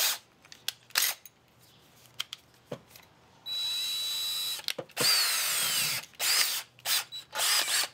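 DeWalt cordless drill spinning with no load in a series of trigger pulls: a few short blips, then two runs of about a second each with a steady whine, and three short spins near the end.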